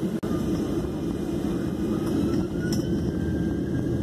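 Cabin noise of a Southwest Airlines Boeing 737 moving on the ground: a steady engine and rolling rumble, with a faint whine rising slightly in pitch.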